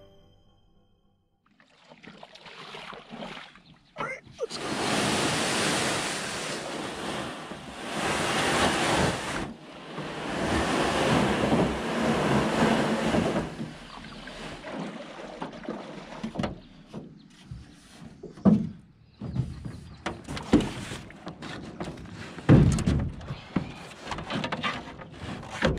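Rushing water and wind noise as a small aluminium jon boat moves across a lake, loudest in two long stretches near the start. This gives way to quieter lapping with scattered knocks and thumps of gear being handled in the boat.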